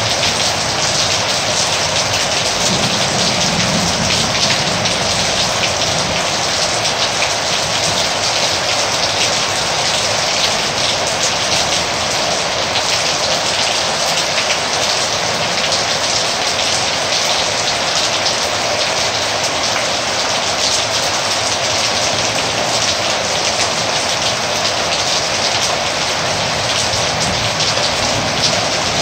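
Heavy rain falling steadily, a dense even hiss with many close drops ticking on a hard surface.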